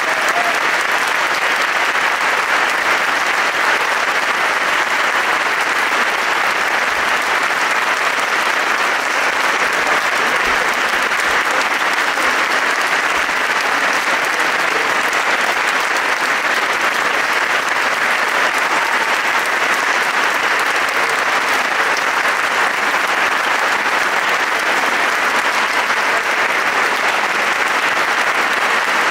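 Audience applauding steadily after a choral concert, sustained clapping from a large crowd.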